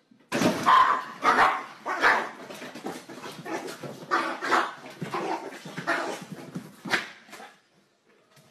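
Small dog barking repeatedly, loudest at the start and stopping near the end.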